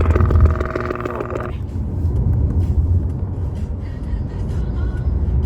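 Electronic alert tone with a rapid pulsing rhythm that cuts off suddenly about a second and a half in, leaving the low steady rumble of a car's road noise.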